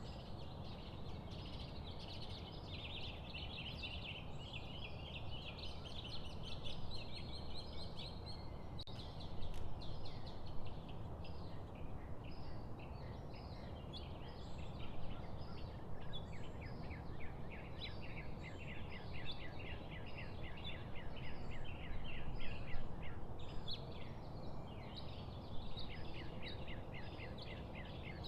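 Several small birds singing and chirping in a dense, continuous chorus over steady low background noise.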